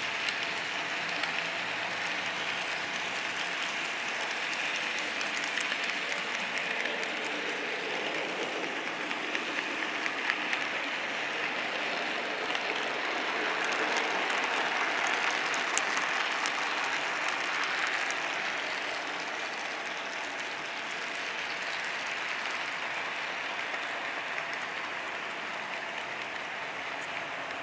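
Model railroad freight cars rolling past on the layout track, a steady rushing hiss of wheels on rail with small rapid clicks, growing a little louder near the middle.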